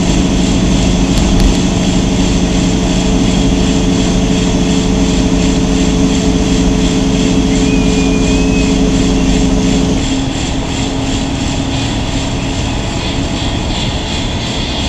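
Semi-truck's diesel engine droning steadily, heard inside the cab while cruising on the highway, along with road noise. About ten seconds in, its steady engine note drops away and the sound becomes a little quieter.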